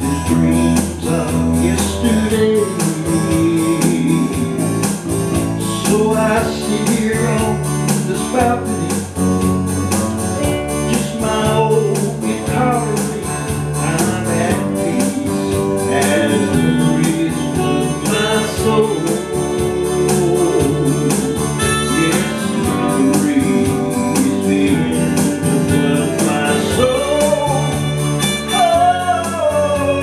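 A small band playing an instrumental break: electric bass, electric guitar and digital keyboard, with a lead melody line that bends and wavers in pitch, most strongly near the end.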